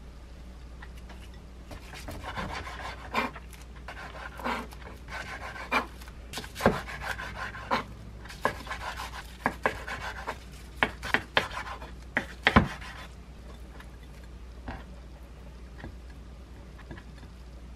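Kitchen knife sawing through gimbap rolls on a wooden cutting board: rasping strokes through the seaweed wrap, with sharp taps as the blade meets the board. The knife is one she says needs replacing. The cutting stops about two-thirds of the way through.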